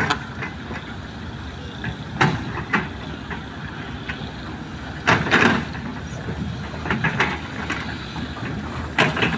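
Crawler excavators' diesel engines running with a steady low rumble while digging, broken by several sharp clanks of buckets and tracks on earth and stone, the loudest about five seconds in.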